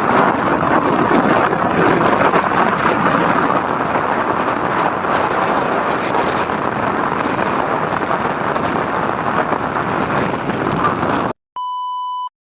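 A loud, steady rushing noise with no clear pitch, like heavy rain, cuts off suddenly near the end. After a moment of silence comes a short, steady electronic beep.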